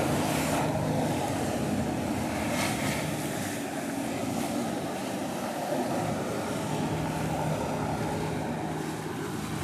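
Steady hum of boat engines, among them the Sea-Doo personal watercraft pumping water up the Jetovator's hose, over the rushing hiss of water spray and wind on the microphone.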